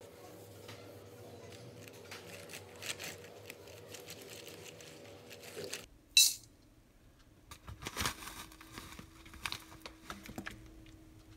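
Small clinks and taps of handling around a stainless steel mixing bowl, with one sharp clink about six seconds in. A faint steady hum underlies the first half and stops just before that clink.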